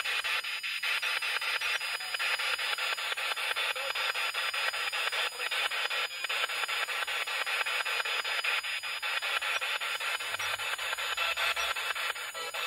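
Handheld spirit box scanning through radio stations, giving a continuous rasping static chopped by rapid, even breaks as it jumps from station to station.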